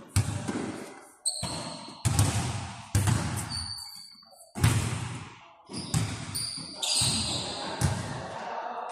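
A basketball bouncing on a gym floor: hard thuds about once a second, each echoing in the hall, with brief high sneaker squeaks in between.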